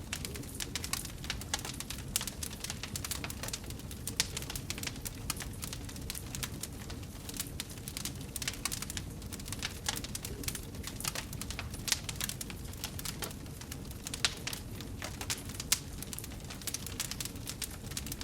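Wood fire burning in a fireplace: a dense, irregular crackle of small pops over a steady low rumble of flames, with a few louder pops.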